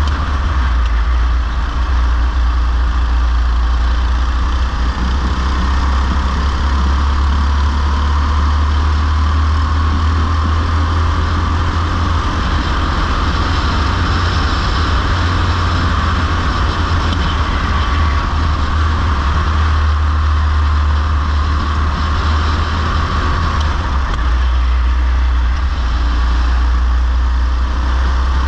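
Go-kart running at racing speed, heard onboard: a steady motor drone whose pitch rises and falls gently with speed, over a heavy low rumble from wind buffeting on the camera microphone.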